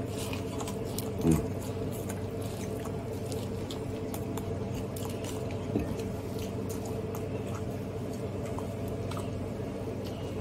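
A person biting and chewing corn on the cob coated in toppings, with small wet mouth clicks over a steady low hum. There is one short louder sound about a second in.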